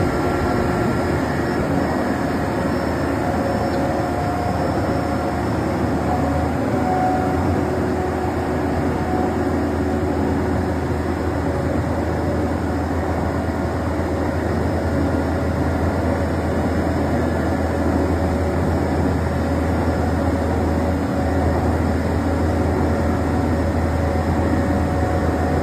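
Diesel engine of a self-loading concrete mixer truck running steadily, a constant low rumble with a faint wavering whine above it.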